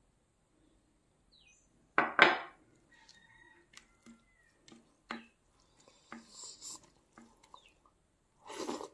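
Eating sounds at a plate: a loud double knock about two seconds in, as the glass bowl of dal goes back down on the stone counter, then light clicks and a soft scratchy mixing sound as fingers work dal into rice on a ceramic plate, and a brief wet noise near the end as a handful goes into the mouth.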